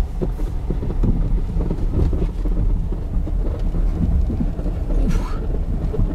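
Low, crackly rumble of a car driving slowly over a snow-covered street, tyres crunching through the snow, heard from inside the car. There is a short hiss about five seconds in.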